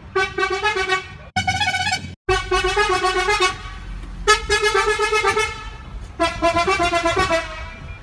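Truck horn sound effect, altered, honking in a run of blasts about a second long with short gaps between them, each a single pitched horn tone with many overtones.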